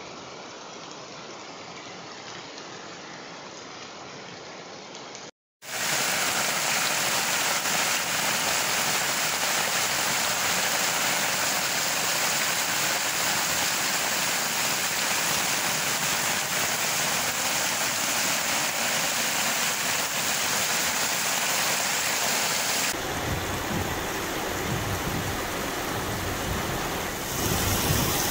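Heavy tropical downpour: a steady, loud hiss of rain falling on flooded streets and open ground. It opens with a few seconds of quieter even noise, and in the last few seconds a low, uneven rumble joins the rain.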